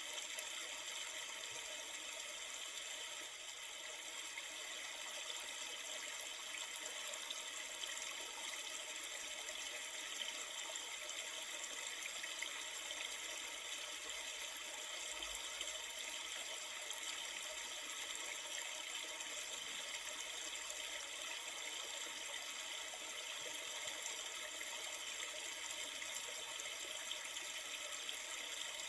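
River water flowing steadily, an even rushing babble with no breaks.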